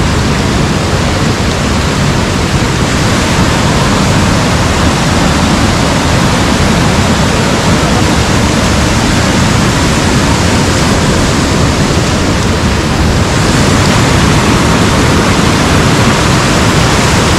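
Waterfall rushing close by: a loud, steady roar of falling water.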